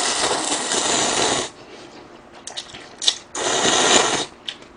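Slurping of spicy instant ramen: a long slurp of noodles from a bowl lasting about a second and a half, then after a pause and a short click, a second slurp as broth is drunk from the bowl's rim.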